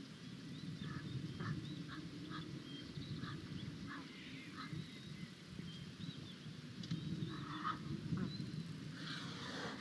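Birds calling in a short series of repeated notes with higher chirps between, over a steady low rumble of outdoor noise; the calls grow louder near the end.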